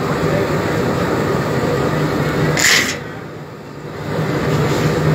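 Soap plodder running steadily, its motor drive giving a constant low hum and rumble as soap bars are extruded. About halfway through there is a short sharp scrape or hiss, after which the machine sound briefly drops lower.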